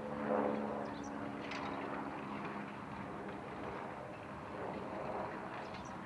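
Valtra T153 tractor's six-cylinder diesel engine running steadily under load as it pulls a four-furrow plough through the soil.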